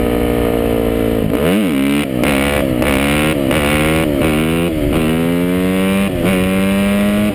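Dirt bike engine on the move: its pitch repeatedly rises and drops with short breaks, as with throttle changes and gear shifts, then holds steady near the end.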